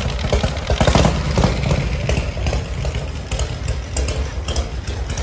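Harley-Davidson V-twin motorcycle engine idling with an uneven, loping rumble.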